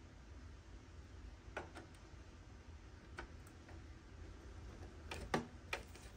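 Scattered small clicks and taps of a power cable's plug being handled and pushed into the power socket on the back of a Synology DS1522+ NAS, bunched near the end, with the loudest click a little over five seconds in as the plug goes home.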